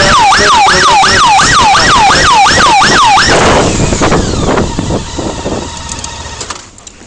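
Police motorcycle siren on yelp, sweeping rapidly up and down about two and a half times a second, then cutting off about three seconds in. The road and engine noise left behind fades away over the next few seconds.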